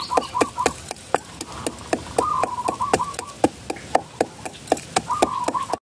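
Pestle pounding black peppercorns in a mortar: sharp, even strikes at about three to four a second. A rapid series of high chirps comes and goes in three short bursts over the pounding.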